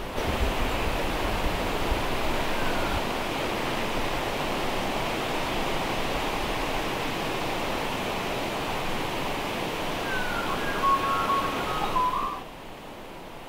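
Steady rushing noise, with a few short chirps about ten seconds in; the noise cuts off suddenly near the end.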